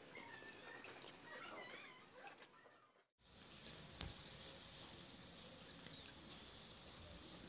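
Faint, steady, high-pitched chirring of night insects, starting after a short break in the sound about three seconds in; before the break, faint chirping calls.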